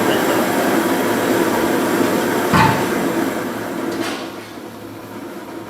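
Gas-fired heater's burner and fan running with a steady rush, then turned down to low fire, so the noise drops noticeably about four seconds in. A single sharp knock sounds about halfway through.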